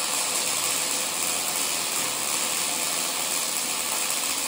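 Electric arc welding on a steel-tube frame: a steady, continuous crackling hiss from the arc.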